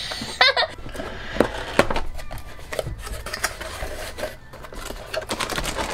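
Cardboard kit box being opened and its contents pulled out by hand: scraping and rubbing of cardboard with scattered clicks.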